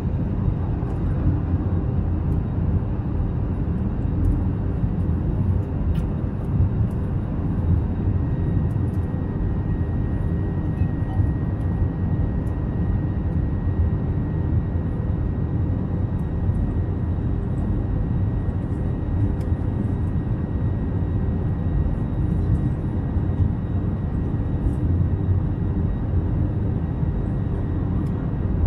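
Steady cabin noise inside an Airbus A321neo airliner in flight: a constant low rumble of engines and airflow, with a few faint steady tones over it.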